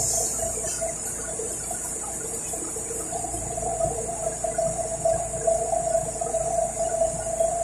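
City bus running, heard from inside near the rear doors: a steady low rumble with a constant whine-like tone and a high hiss.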